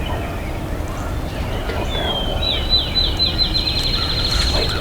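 A small songbird singing a fast, high trill of short repeated notes. It starts about two seconds in and runs on for a couple of seconds, over a low background rumble.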